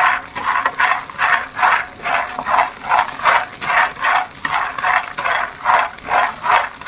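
Shelled peanuts being dry-roasted in a frying pan and stirred continuously, the nuts rattling and scraping against the pan about two to three times a second.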